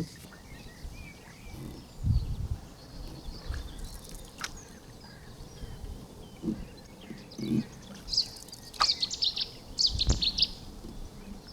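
Wild birds singing and chirping, with a dense run of quick high chirps in the last few seconds, over a few low thumps from the paddling canoe.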